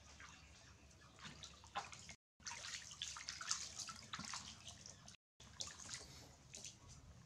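Water splashing and sloshing in a plastic basin as a baby monkey swims and flips in it and a hand stirs the water. The splashing is busiest in the middle, and the sound drops out completely twice, briefly.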